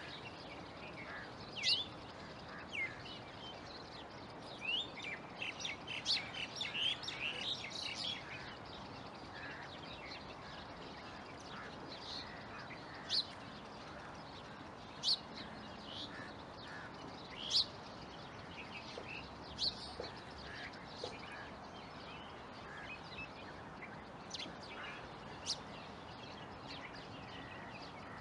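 Bulbuls calling with short, sharp, high chirps: a quick flurry of chirps about five to eight seconds in, then single calls every couple of seconds, over a steady background hiss.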